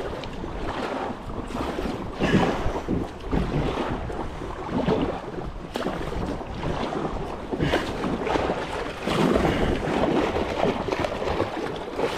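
Wind rumbling on the microphone over moving river water, rising and falling in uneven surges.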